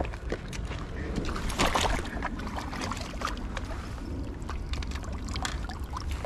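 Water splashing and sloshing as a hooked fish thrashes at the surface and is scooped into a landing net in the shallows, with a louder splash about two seconds in.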